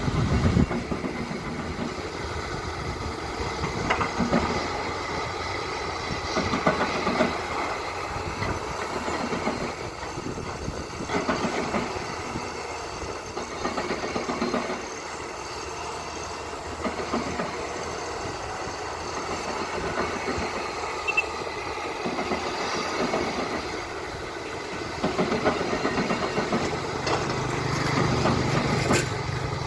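Excavator at work: its diesel engine running under irregular metallic clanking and rattling. A steadier engine hum gets louder near the end.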